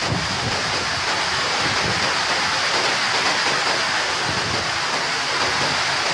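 Heavy storm rain and the rushing water of a flooded creek make a steady, loud hiss with no breaks.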